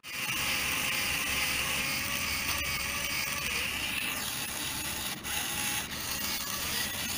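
Small DC motors of a model garbage-collecting boat running steadily, a geared mechanical whir, with a couple of brief clicks about five seconds in.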